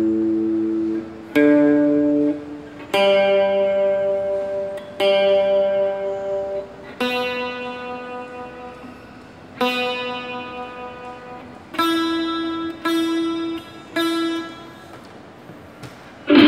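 Electric guitar played through a Zoom GFX-4 multi-effects processor on a clean patch: about eight chords, each struck and left to ring out. Right at the end a much louder, distorted tone cuts in.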